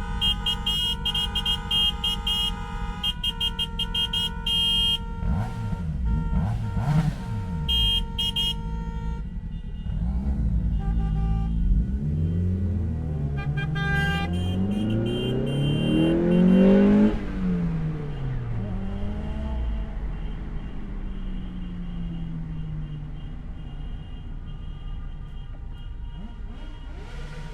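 Traffic noise: car horns honking in many short, overlapping blasts over the rumble of running engines. About a third of the way in, an engine revs up, climbing steadily in pitch to the loudest point about two-thirds through, then drops back; the traffic rumble then fades, with faint horns.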